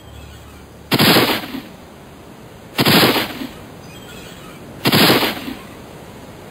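Three loud gunshots about two seconds apart, each starting sharply and dying away over about half a second, over a steady hiss.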